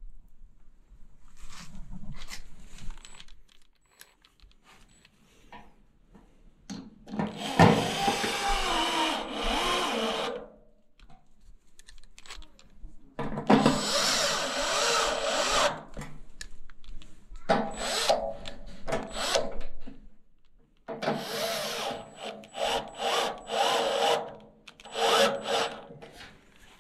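A cordless electric ratchet runs in about five bursts of one to three seconds each, with short pauses between them, driving the bolts on the mounting arms of a furnace blower motor.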